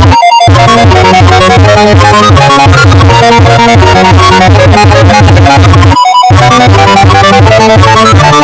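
Loud synthesizer music of a mock emergency alert alarm, many notes sounding at once over a steady bass and played near full volume. It drops out briefly just after the start and again about six seconds in.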